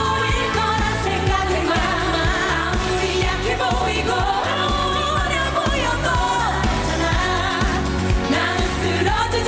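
Women singing a Korean pop song live into microphones, with powerful belted vocals over a dance-pop backing track with a steady beat.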